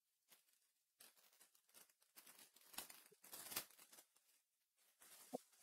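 Faint rustling and crinkling of Weiss Schwarz trading cards being handled and flipped through, louder in the middle.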